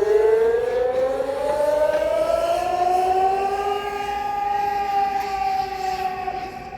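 Civil defense air raid siren wailing: its pitch climbs slowly to a high held tone, then sags a little and fades slightly near the end. A second, lower siren sounds beneath it. This is the air raid alert that opens the half-hour Wanan drill, when everyone must stay indoors or off the streets.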